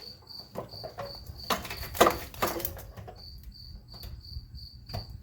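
Crickets chirping steadily, a high pulsing trill about three times a second. Over it, a burst of clattering knocks and clicks from hands working on parts, loudest about two seconds in.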